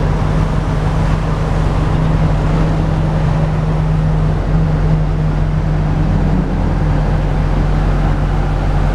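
Semi-truck's diesel engine droning steadily with road noise, heard from inside the cab at highway speed: a steady low hum over an even rushing noise.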